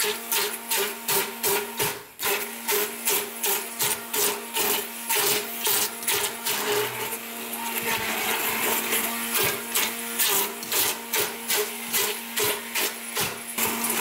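Immersion stick blender running in a stainless steel pot, puréeing steamed cauliflower with butter, chicken stock and heavy cream into mash. The motor gives a steady whir.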